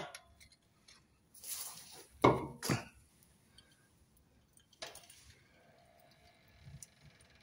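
Metal clunks as a jack is slowly lowered to take the tension off a Jaguar XK8's rear suspension: a short scraping rustle, then two loud clunks in quick succession and a sharp knock a couple of seconds later.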